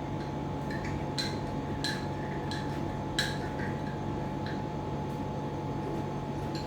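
Light clinks and taps of kitchen glassware and utensils, a few separate strikes scattered through, over a steady electrical hum.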